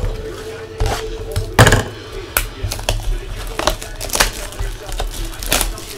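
Cardboard trading-card box being torn open and its foil packs handled: about ten sharp, irregular crackles and knocks, the loudest about one and a half seconds in.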